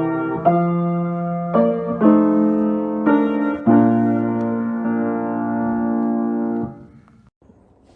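Piano playing slow chords, closing on a long held chord that stops about seven seconds in.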